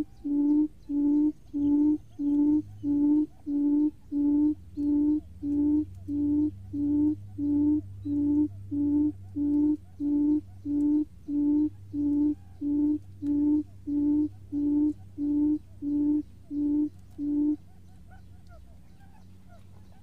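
Buttonquail call used as a lure for trapping wild buttonquail: a long series of short, low hoots, about two a second, that stops near the end.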